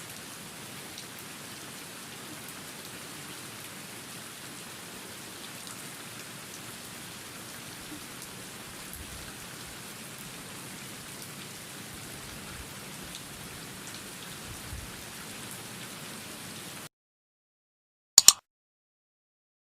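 Steady rain falling, an even patter that cuts off suddenly about three seconds before the end. A second or so later comes one sharp, loud click.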